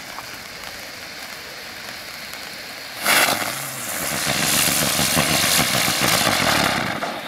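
Small firework fountains hissing steadily; about three seconds in a large firework ground spinner (a "Brummer") flares up suddenly and then spins on the ground with a loud, engine-like buzz over the hiss.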